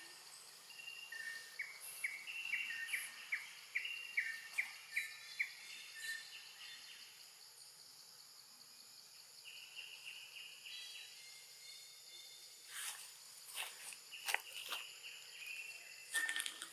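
Forest ambience: a steady, fast-pulsing insect drone, with a bird giving a series of short repeated chirps, about two a second, early on and again near the end. A few short scratchy noises come in the last few seconds.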